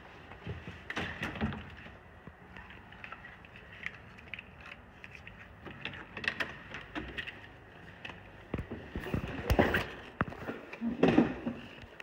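Hotel room door with an electronic keycard lock being unlocked and opened: scattered clicks and handling knocks at the lock and lever handle, then a cluster of louder clunks about nine to eleven seconds in as the latch releases and the door is pushed open.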